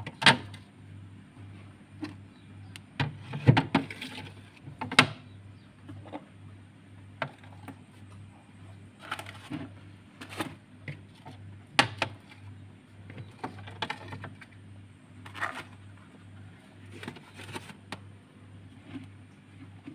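Irregular knocks and clicks with a few brief rubbing sounds as a refrigerator is cleaned by hand, its parts and containers handled, over a steady low hum.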